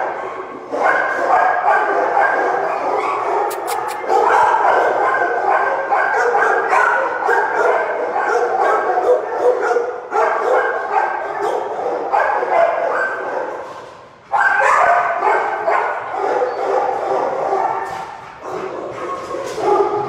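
Many kennelled dogs barking and yipping at once, a dense continuous din with a short lull about two-thirds of the way through.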